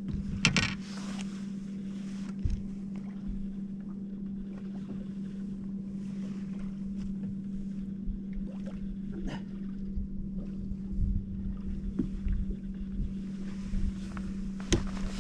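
A steady low electric hum on a bass boat, with scattered knocks and taps from handling on the deck.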